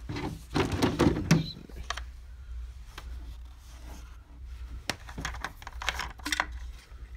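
Handling noise from a plastic chainsaw housing: light clicks and taps as the fuel cap is worked off. There is a louder, muffled bump of handling about a second in, over a low steady hum.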